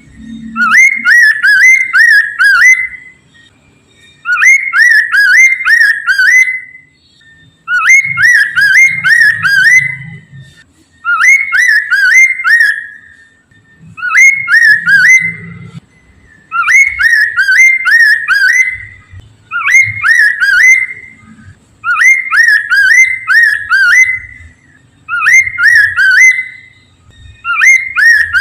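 Poksay mandarin singing: a loud whistled phrase of four or five quick, sweeping notes, repeated about every three seconds.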